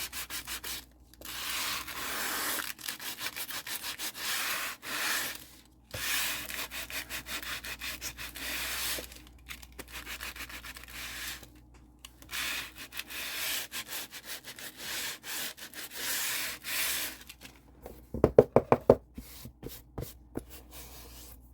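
Sandpaper rubbed by hand over a glossy book cover in quick back-and-forth strokes, roughening the shiny surface so glue and fabric will stick. Near the end, a quick run of several loud knocks.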